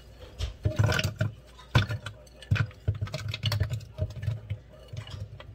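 Pieces of fruit (strawberries, banana slices, blueberries) tumbling from a glass bowl into a plastic Ninja Foodi blender cup: a run of irregular knocks and thumps.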